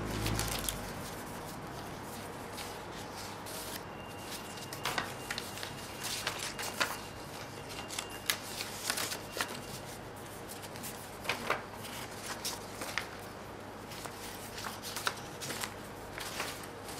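Printed paper leaflets being handled, leafed through and shuffled: irregular crisp rustling of paper with scattered sharper snaps.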